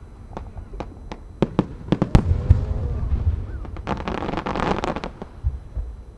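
Aerial firework shells launching and bursting: a run of sharp bangs with one loud report about two seconds in. A dense crackling follows for about a second, starting near four seconds in, as a burst of glittering stars goes off.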